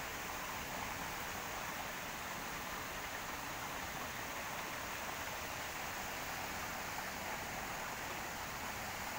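Steady rushing of running water, a hiss without breaks, from a stream or runoff channel swollen by heavy rain.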